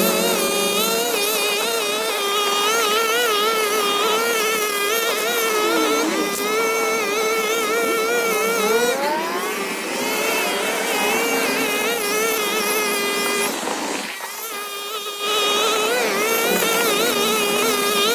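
Hyper Tough 25cc two-stroke string trimmer running at high speed while cutting grass, its pitch wavering constantly with the throttle and load. It dips about six seconds in, rises again near nine seconds, and eases off briefly around fourteen seconds before coming back up.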